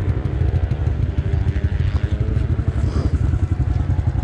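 Pit bike's small single-cylinder engine running steadily at low revs close by, a fast, even putter.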